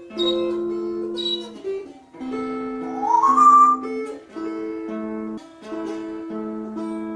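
Dulcimer strummed in a steady tune over sustained drone notes. About three seconds in, a pet bird gives a loud, short rising whistle over the music.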